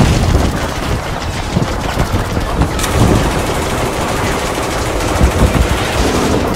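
Steady stream of rapid machine-gun fire, a battle sound effect laid over the mock combat.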